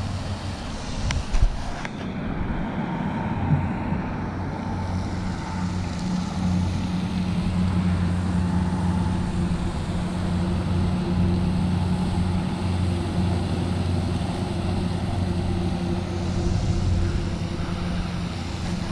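Steady low mechanical hum of a running motor, with a couple of short clicks about a second in.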